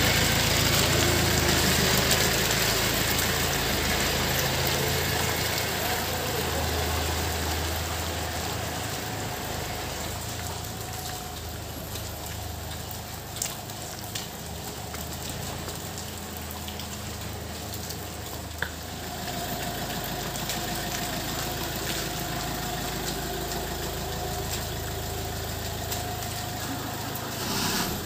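Karsan Jest+ minibus's diesel engine running steadily at low speed, loudest at first, fading as the bus draws away, then getting louder again for the last several seconds as it comes close by.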